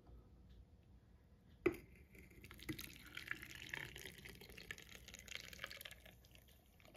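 Brine poured from a mug into a glass jar packed with cucumbers: a faint splashing trickle filling the jar, which begins after a light knock about two seconds in and tails off near the end.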